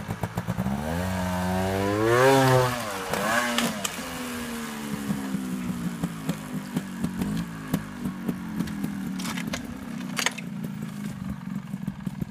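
Trials motorcycle engine revving up hard as the bike climbs a rock face, then dropping back to a steady low running note. A few sharp knocks near the end.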